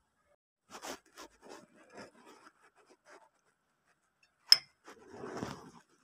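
Metal spoon scraping and tapping against a ceramic bowl of saucy beef ribs, with one sharp clink about four and a half seconds in and a short scrape after it.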